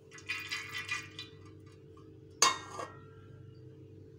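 Metal cookware clattering against a metal cooking pot: a short rattling clatter, then a single sharp clank that rings briefly about two and a half seconds in, followed by a smaller knock.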